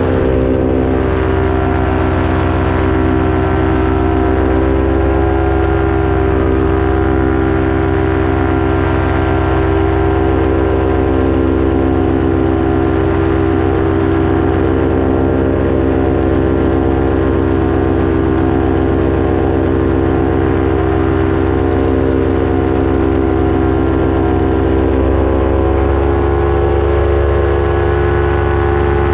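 Paramotor engine and propeller running steadily in cruising flight, a constant loud droning note with only a slight shift in pitch near the end.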